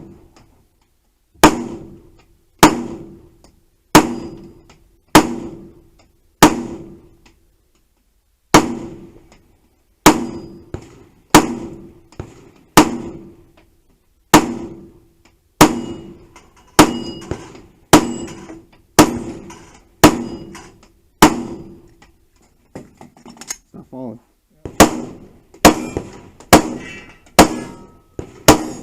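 Gunshots fired one at a time, about one a second, some twenty in all, each with a short ringing tail. Near the end there is a short break with quieter clattering, then a quicker run of about six shots.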